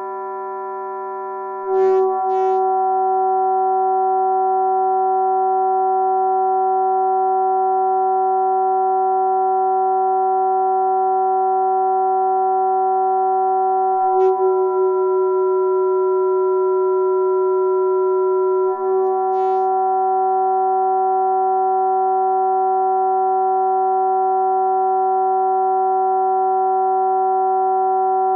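A steady electronic drone of pure sine tones stacked in a chord. It gets louder about two seconds in, and a few times a short click marks a small shift in the chord's upper tones.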